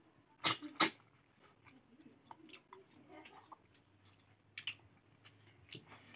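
Close-miked eating of pork and rice: wet chewing and mouth smacks. A few sharp, loud smacks come about half a second in and again around the middle-to-late part.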